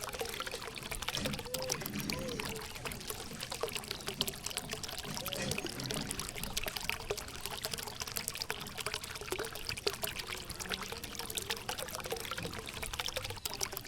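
Water pouring and splashing steadily from a mini submersible water pump's outlet, with a constant fine crackle of droplets.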